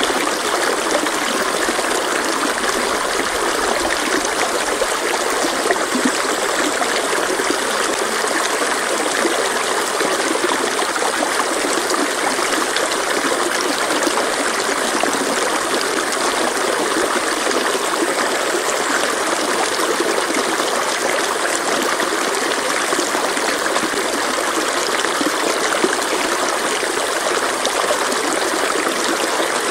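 Mountain stream flowing over rocks: a steady, even rush of running water.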